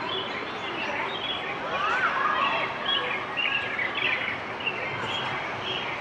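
A crowd of birds chirping in quick short notes, one of them giving a rising-and-falling call about two seconds in, over a steady background hubbub.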